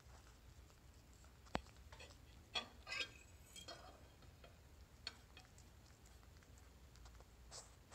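Cat licking a ceramic plate and a steel fork: faint licking with scattered soft clicks, a sharp clink of the fork on the plate about a second and a half in, and a short run of clicks and scrapes around three seconds.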